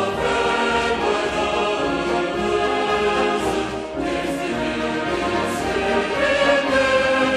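Choral music with orchestral backing: voices holding long sustained chords.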